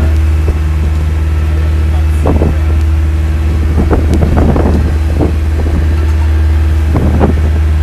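Boat engine running with a steady deep drone.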